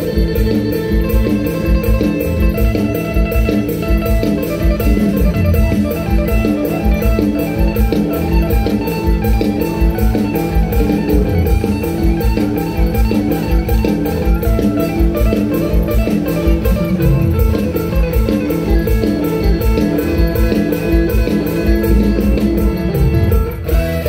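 Live Isan mor lam band playing an instrumental passage with a steady, fast beat, loud.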